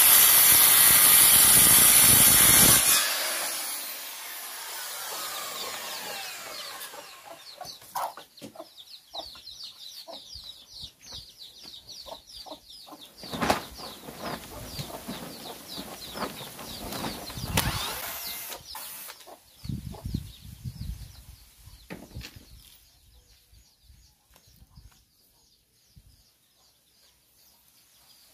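Electric circular saw ripping a long wooden board, cutting off about three seconds in, its blade then winding down over a few seconds. Afterwards scattered knocks and repeated high chirping bird calls.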